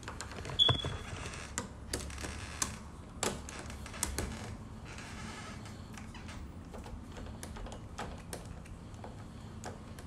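A hand screwdriver turning a screw into a door lock's mounting plate: irregular small clicks and scrapes as the screw is worked in, with a short high squeak about half a second in.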